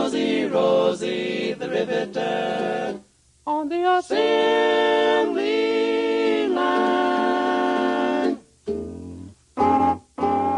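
Recorded swing-era vocal group singing long harmonised held notes over a band, with a short break about three seconds in and short punched chords near the end.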